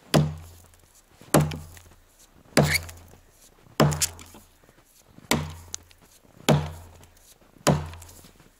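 Seven axe blows into a dry standing tree trunk, about one every 1.2 seconds, each a sharp chop with a short dull thud: a hand-forged Burunduk axe cutting the felling notch in a dead, very dry tree.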